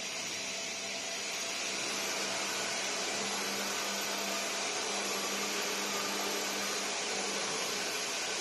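CNC woodworking router running with a steady machine whir and a faint hum, rising slightly in level over the first couple of seconds.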